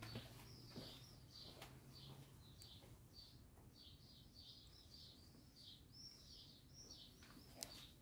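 Faint birdsong: a small bird chirping a long run of short, high notes. A few soft taps are heard, one near the start and one near the end.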